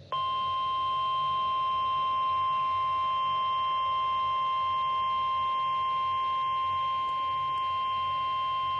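NOAA Weather Radio warning alarm tone: the single steady 1050 Hz tone comes on abruptly and holds at one pitch, signalling that a warning broadcast follows.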